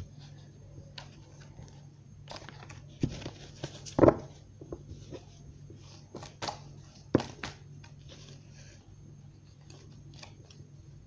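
A deck of reading cards being shuffled by hand over a cloth-covered table: soft sliding and flicking of cards with scattered clicks. A few sharper knocks stand out, the loudest about four seconds in and another about seven seconds in.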